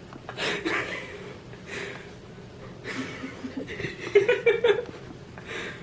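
People chuckling and laughing in short bursts, the loudest a quick run of laughs about four seconds in.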